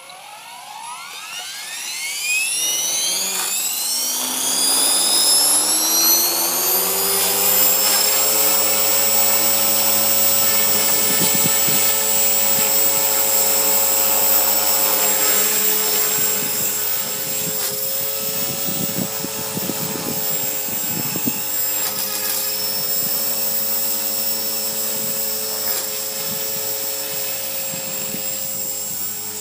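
Align T-Rex 450 electric RC helicopter spooling up: the motor and rotor whine rises steeply in pitch and loudness over about seven seconds, then holds a steady high whine with rotor noise at flight speed.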